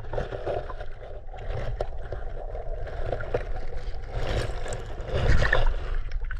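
Water sloshing and gurgling close to the microphone as a bass is released back into the creek, over a steady low wind rumble, a little louder about five seconds in.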